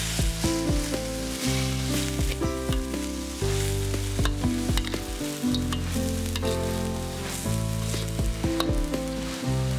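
Stir-frying: shredded young papaya and fried anchovies sizzling in a hot pan as a metal spatula tosses them, with repeated clicks and scrapes of the spatula against the pan.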